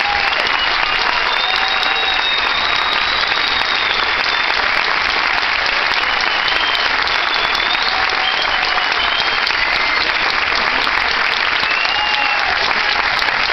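Theatre audience applauding steadily, with shrill whistles rising over the clapping now and then.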